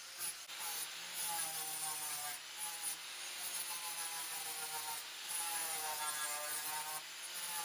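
Angle grinder grinding down fresh welds on a sheet-metal rust-repair patch: a steady grinding hiss over a motor whine whose pitch wavers as the disc is worked against the metal.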